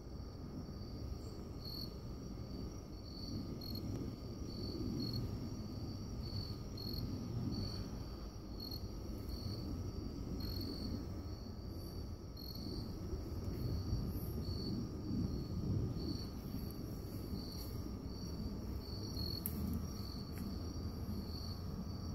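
Crickets chirping: a steady high trill with evenly spaced louder chirps, over a continuous low rumble.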